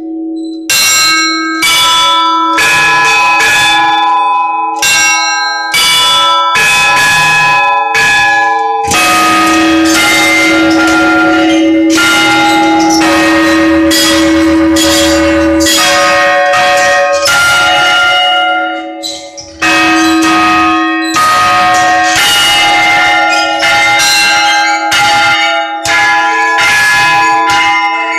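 A set of church bells rung by one bell ringer: smaller bells struck in quick rhythmic patterns over a deeper bell's steady ringing tone, with a brief pause about two-thirds of the way through.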